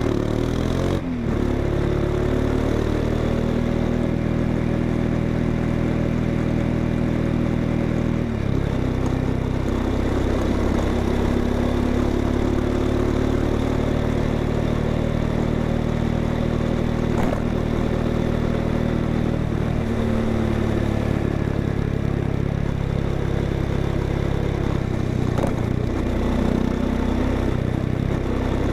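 Exhaust of a Honda XRE 190's single-cylinder engine running steadily, its note shifting in pitch a few times as the engine speed changes.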